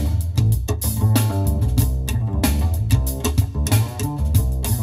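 Jazz-fusion music with a prominent electric bass and drum kit, played back loud over a car audio system inside the cabin.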